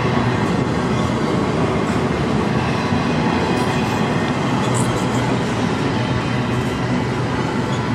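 Double-stack intermodal container cars rolling past close by: a steady rumble and rattle of steel wheels on rail, with a few faint, brief high squeaks about halfway through.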